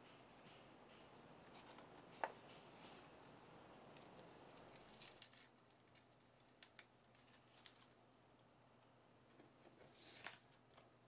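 Faint handling sounds in a quiet room: one sharp click about two seconds in, a scatter of light clicks and taps around the middle, and another click near the end.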